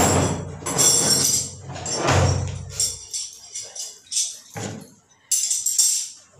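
Irregular jingling rattles and clatters from objects being handled, with dull thumps near the start and about two seconds in.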